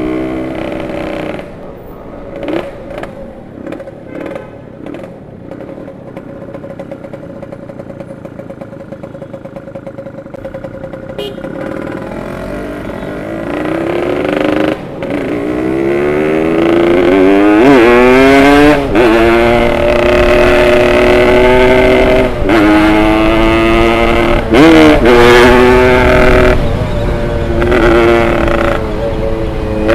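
Tuned two-stroke Yamaha RX Special motorcycle engine under the rider: running low for about the first twelve seconds, then revving up hard through the gears, its pitch climbing and dropping back at each shift.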